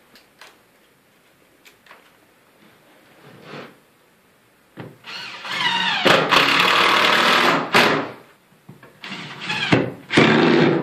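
Cordless drill driving screws down through stacked OSB template pieces: a few faint clicks, then the motor winds up with a rising whine about five seconds in and runs steadily for a couple of seconds, followed by two shorter bursts near the end.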